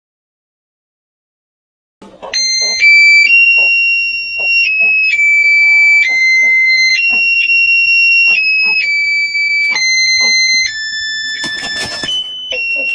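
Two seconds of silence, then a high-pitched tune of steady held notes that step up and down in pitch every half second or so, alarm-like. A short noisy crackle cuts in near the end.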